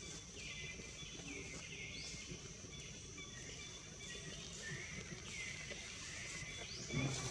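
Steady high insect drone with short rising bird calls repeating every second or two.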